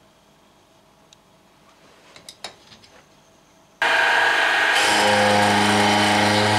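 Benchtop mill-drill: a few faint clicks, then about four seconds in the machine starts abruptly and runs loud, with a steady motor hum and a rasping cut as the shell end mill takes a half-millimetre pass along the hand-sawn edge of a steel angle.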